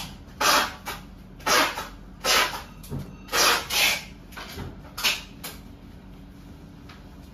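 Postcards sliding across one another as they are flipped off a stack by hand: five or so short, papery swishes in the first five seconds.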